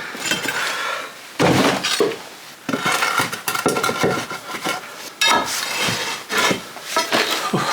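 Metal tools scraping, clinking and knocking against old stone floor slabs and grit as the slabs are dug round and levered up, in irregular strokes, the loudest starting about a second and a half in.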